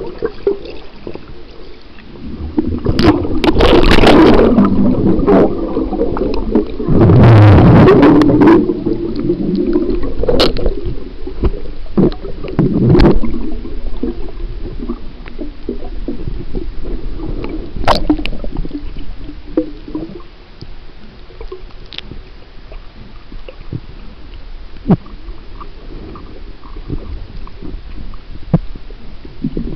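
Water heard through a microphone held underwater: a muffled gurgling and rumbling, with two louder rushing surges in the first nine seconds and scattered sharp clicks after them.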